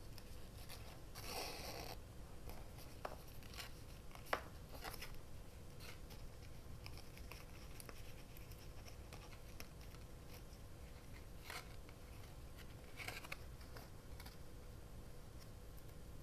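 Faint paper-crafting sounds: scattered rustles of paper being handled and light clicks of tools on a work surface. The sharpest click comes about four seconds in.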